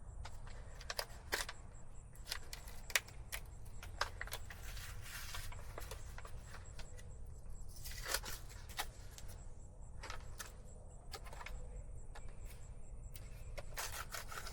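Handling noise from work on winch wiring: scattered light clicks and knocks with a few stretches of rustling, over a low steady rumble.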